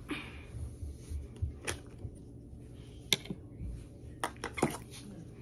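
Handling noise of slime being pressed onto the strings of a child's tennis racket: a few scattered sharp clicks, the loudest about three seconds in and a cluster near the end, over soft low bumps.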